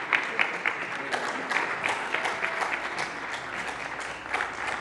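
Applause from a small group of people, many separate hand claps at once.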